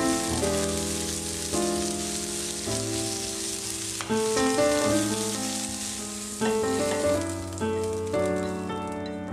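Sliced bell peppers sizzling as they are stir-fried in a frying pan, with background music playing over it. The sizzling thins out near the end.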